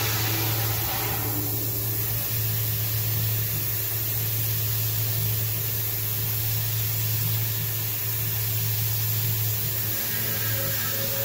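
CNC-converted Grizzly G0704 milling machine working aluminum extrusion: a steady hiss of mist coolant spray over a steady low machine hum. A faint whine fades out about a second in and returns near the end.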